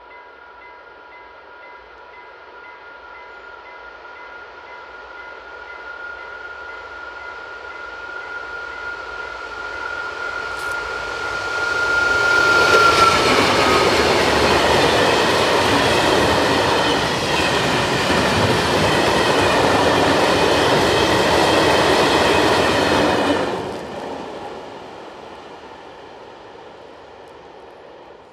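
A diesel-hauled freight train of covered wagons approaching and passing: a steady high whine grows louder and drops slightly in pitch as the locomotive goes by about 13 seconds in. The wagons then rumble and clatter past loudly for about ten seconds, stop abruptly, and the sound fades away.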